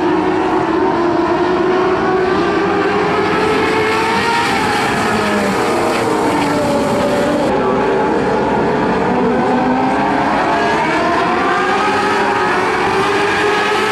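Several Modlite dirt-track race cars racing around the oval, their engines running together in overlapping whines whose pitch rises and falls as the drivers work the throttle through the turns.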